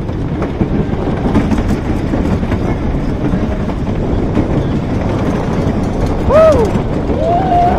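Wooden roller coaster train rolling on curving wooden track, its wheels rumbling and clattering steadily. Near the end come two brief high-pitched squeals.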